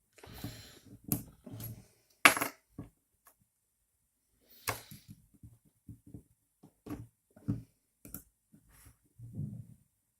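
Clicks and knocks of small parts and tools being handled and set down on a workbench while the printer's extruder is taken apart, the sharpest clicks about two and five seconds in.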